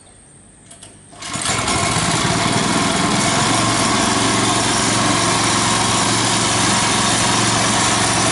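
Small petrol engine of a long-tail boat motor starting about a second in, then running steadily and loudly, its propeller lifted out of the water.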